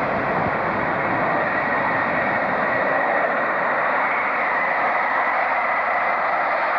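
Electric locomotive hauling passenger coaches along an electrified main line, a steady rushing rail noise with a faint whine that holds at one level throughout.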